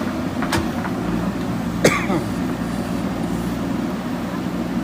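Diesel engine of a JCB backhoe loader at work, running steadily. There is a light knock about half a second in and a louder, sharp knock just under two seconds in.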